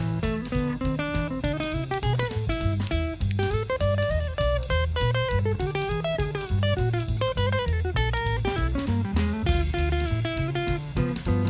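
Instrumental jazz with a guitar playing the lead line over a bass line and drum kit.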